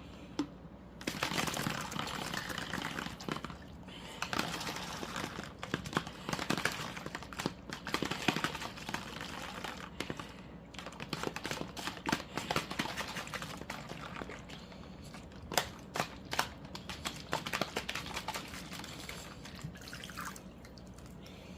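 Wet hard-boiled egg being cracked and peeled by hand: eggshell crackling and snapping in a stream of small clicks, with a wet, watery edge, coming in several spells with short pauses.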